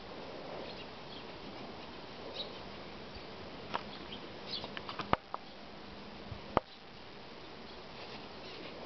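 Steady outdoor background hiss with a faint low hum and a few faint high chirps, broken by several sharp clicks or taps between about four and seven seconds in, two of them much louder than the rest.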